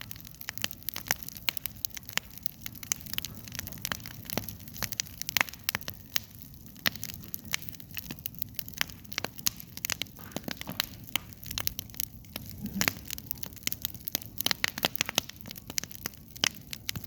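Campfire crackling: a dense, irregular stream of sharp pops and snaps over a low, steady noise.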